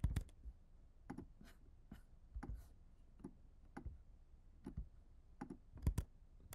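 Irregular, sparse clicks of a computer mouse and keyboard as the software is operated, with a couple at the start and a quicker cluster near the end.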